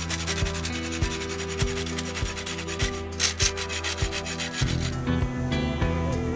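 Hand abrasive rubbed back and forth over a katana's wooden handle, rasping strokes about twice a second, with background music under it. The rubbing stops about three-quarters of the way through and the music carries on.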